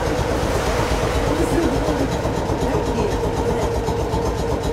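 Steady low hum of the Hiroden 100-series tram car as it stands at a stop, heard from inside the wooden car body, with a faint steady tone in it.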